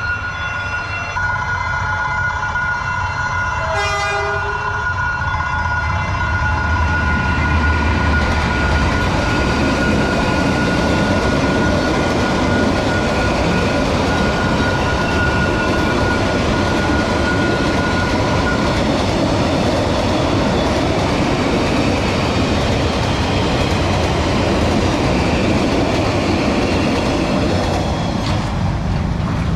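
Diesel train passing a level crossing: a short horn blast about four seconds in over the low rumble of the locomotive's engine, then the steady rumble and rattle of the carriages going by until near the end. A steady high tone sounds until about 18 seconds in.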